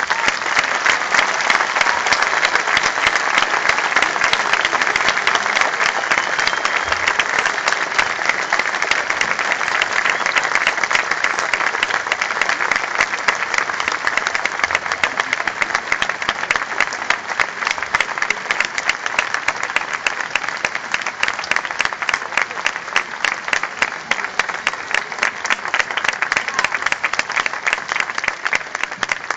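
Large concert audience applauding: dense, steady clapping from many hands, easing slightly near the end.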